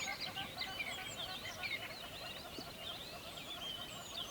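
Dense chorus of many songbirds singing at once: rapid overlapping chirps and short high whistles, with a lower bird repeating quick short notes underneath.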